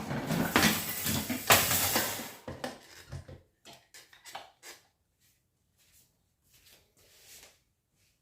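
Parts of a pedestal fan clattering and knocking as the fan head is fitted onto its stand: dense rattling for the first couple of seconds, then a few light knocks that die away.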